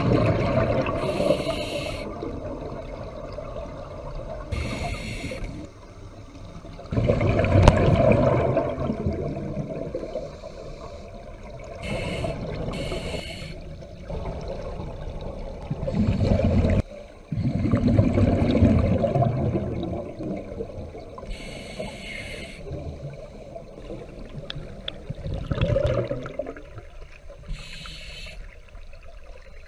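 Scuba diver breathing through a regulator underwater: a short hissing inhale followed by a longer, low rumbling rush of exhaust bubbles, the cycle repeating every eight or nine seconds.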